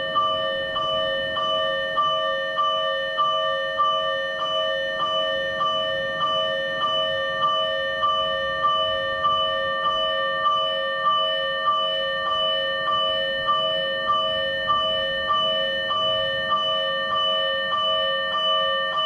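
Electronic fire-engine warning bell from a siren amplifier, sounding a Tokyo Fire Department-style bell tone. Its ringing, bell-like tone is struck over and over in a slow, even rhythm, a little under two strikes a second.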